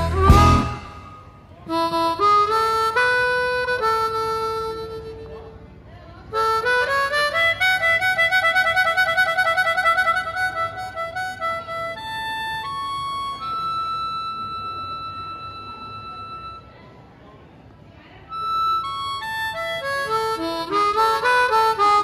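Background music: a solo blues harmonica playing melodic phrases with short pauses between them, including a long wavering held note around the middle.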